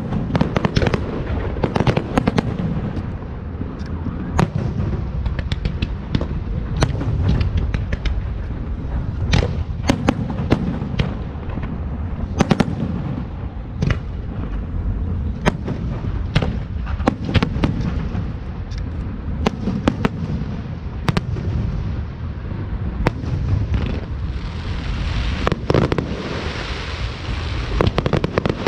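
Fireworks show going off without pause: many sharp bangs and cracks over a continuous low rumble of bursts. A hissing crackle swells up about three-quarters of the way through.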